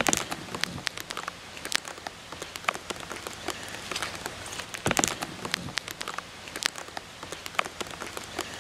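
Steady light rain falling on grass and leaves, with scattered sharp taps of drops throughout.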